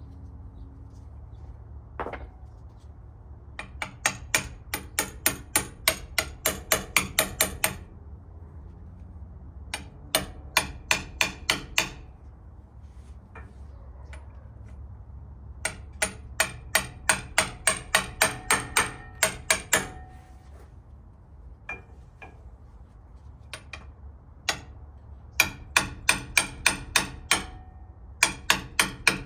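Repeated hammer blows driving a new rear axle seal into a Toyota Land Cruiser FJ40 axle housing: sharp metallic strikes about three a second, in four runs of a few seconds each with short pauses between.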